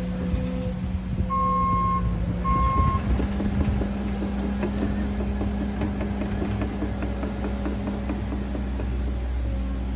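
A vehicle engine running steadily, with two beeps of a reversing alarm starting about a second and a half in.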